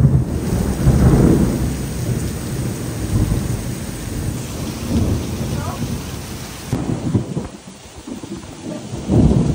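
Thunder in a severe thunderstorm over heavy rain: a sudden loud onset, a deep rumble strongest about a second in that rolls on and fades, and another loud rumble near the end.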